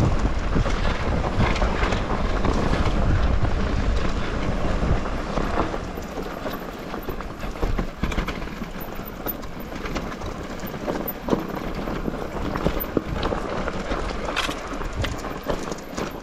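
Mountain bike rolling fast down a rough dirt singletrack: tyre and wind noise on the microphone, with the bike rattling and clicking over stones and roots. A heavy wind rumble fills the first few seconds, then eases, leaving sharper knocks and rattles.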